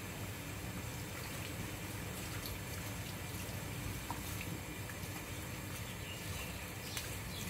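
Water running steadily while a dog is being bathed.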